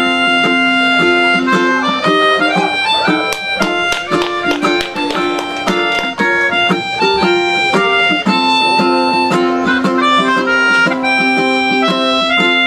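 Melodica playing a sustained melody line over a ukulele strumming chords: an instrumental break between sung verses.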